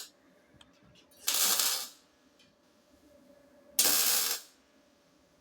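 MIG welder putting two short tack welds on 1 mm sheet steel: two brief bursts of arc noise, each under a second, about two and a half seconds apart, over a faint steady hum.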